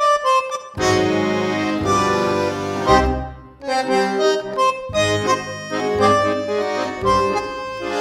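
Instrumental music: a melody over held chords, with a brief dip about three and a half seconds in.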